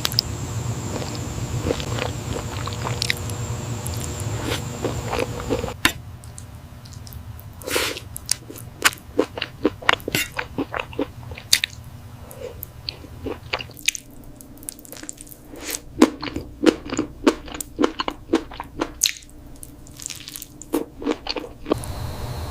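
Close-miked eating sounds of a person biting and chewing spicy octopus. After about six seconds the background drops and a dense run of quick, irregular mouth clicks follows.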